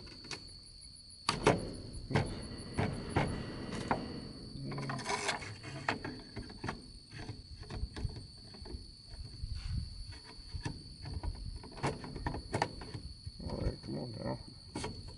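Sharp metal clicks and knocks from a PTR-91 rifle being handled and reassembled on a wooden bench, the loudest a single click about a second and a half in. A steady high insect drone runs behind.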